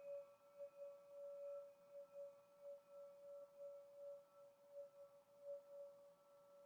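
Crystal singing pyramid ringing on faintly as one steady, clear tone with fainter higher overtones, slowly dying away.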